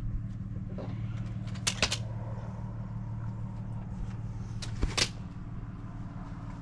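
A steady low mechanical hum, with two short clusters of sharp clacks, one a little under two seconds in and one about five seconds in.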